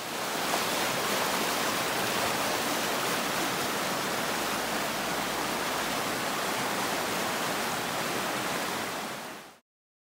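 Fast-flowing shallow creek running over rocks: a steady rush of water that stops abruptly just before the end.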